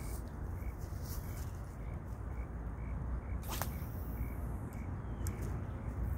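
A fishing rod swishes through the air once in a cast, a quick falling whoosh about halfway through, over a steady low rumble.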